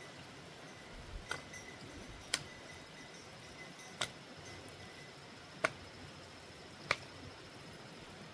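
A string of sharp, short clicks or knocks, about six spaced irregularly one to two seconds apart, over a faint steady background with a thin high tone.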